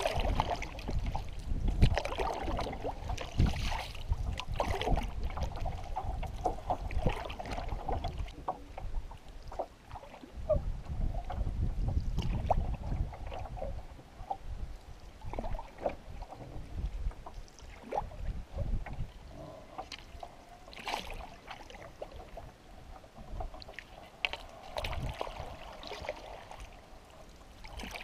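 Canoe paddle strokes, with water splashing, dripping and lapping along the hull of a Prospector 16' canoe. Wind rumbles on the microphone during the first half.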